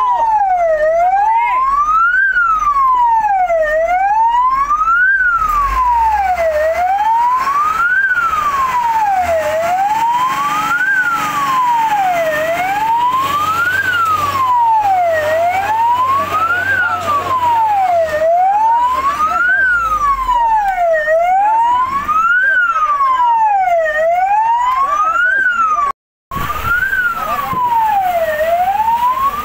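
Fire truck's electronic siren wailing, its pitch sweeping steadily up and down about once every three seconds; it cuts out for a moment near the end.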